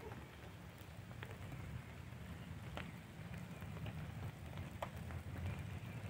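Steady rain falling, with scattered single drops ticking sharply close by.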